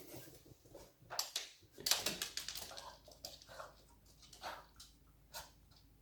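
Boston terrier's paws and claws tapping on the floor as she moves about, an uneven run of short clicks that is loudest about one to two seconds in, then a few scattered taps.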